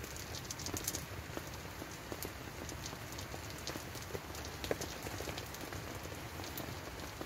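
Rain falling on tent fabric, a steady hiss with many scattered sharper drop taps.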